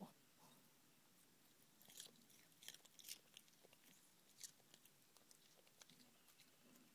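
A small dog chewing a raw baby carrot: a handful of faint, sharp crunches, the clearest about two, three and four and a half seconds in.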